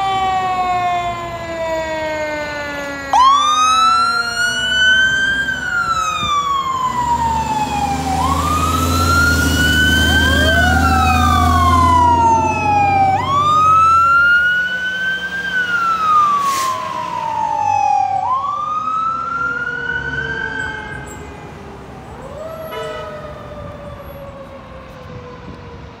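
Fire engine sirens wailing as the apparatus pulls out and passes. The pitch rises and then falls about every two and a half seconds. The truck's engine is heard loudly as it goes by near the middle, and the sirens fade as the trucks drive away near the end.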